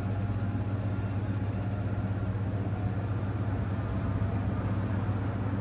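A steady low hum over an even background hiss, unchanging throughout.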